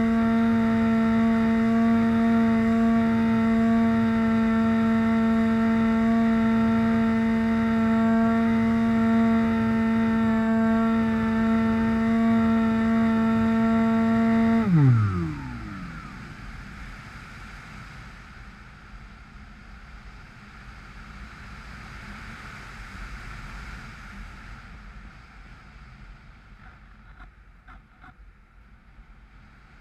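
Bixler model plane's brushless outrunner motor and 6x5 propeller whining at a steady pitch. About halfway through, the throttle is cut and the whine drops sharply in pitch as the prop spins down, leaving only the rush of airflow over the gliding plane.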